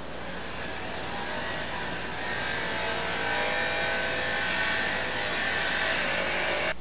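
Wexxar BEL 450 case sealing machine running: a steady motor whirr with several held tones, growing a little louder about two seconds in and cutting off suddenly near the end.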